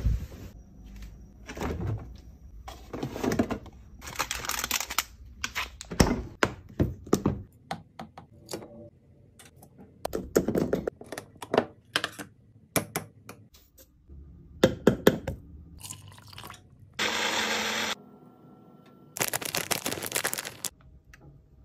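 Close-up ASMR sounds of making breakfast: fabric rustling, a spoon scooping powdered oats into a plastic blender cup, and many taps, knocks and scrapes of utensils and containers. Near the end come two short spells of liquid pouring.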